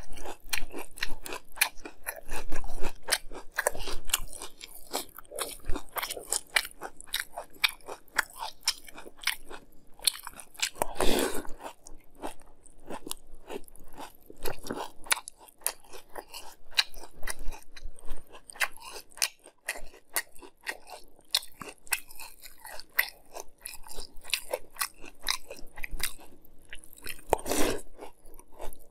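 Close-up chewing and crunching of a mouthful of Fruity Pebbles cereal in milk: a dense run of short, crisp crunches, with two louder, longer sounds, one about midway and one near the end.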